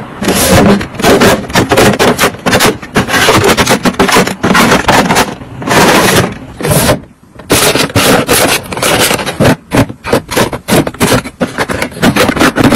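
Plastic drawers sliding in and out of a plastic drawer cabinet and small cardboard boxes and packets being handled against plastic organizer bins: a close, dense run of scrapes, rubs and light clicks and knocks, with a brief lull about seven seconds in.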